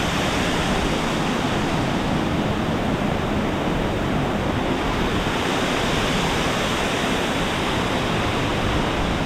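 Steady rushing of a rainforest stream's flowing water, an even hiss with no breaks.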